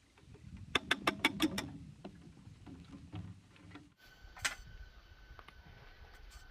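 A quick run of six sharp knocks or clicks about a second in, over low handling noise, then a single knock a few seconds later.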